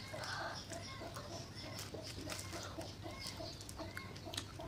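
Eating sounds: chewing on a mouthful of spicy seblak, with a metal utensil clicking and scraping in a styrofoam container. Under it runs a steady string of soft, short repeated sounds, a few each second.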